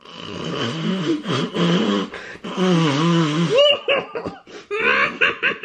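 A croaky Yoda-style voice laughing: a long wheezy, breathy chuckle for about three and a half seconds, then short choppy bursts of laughter.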